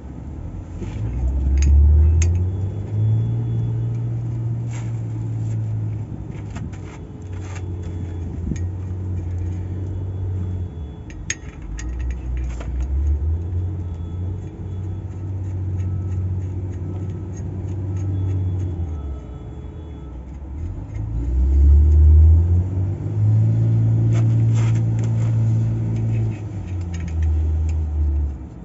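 Diesel engine of a Caterpillar 950G wheel loader running, its speed stepping up and down several times, with scattered metallic clicks and clanks. The sound drops away right at the end.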